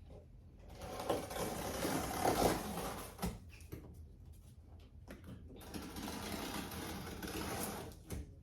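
Cardboard packaging being handled and opened: two stretches of scraping, rasping noise, each a couple of seconds long, with a short pause between them.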